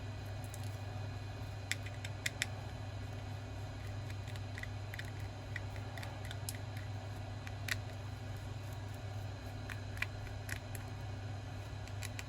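Scattered small, sharp clicks and ticks of hand tools on a smartphone being taken apart, over a steady low hum.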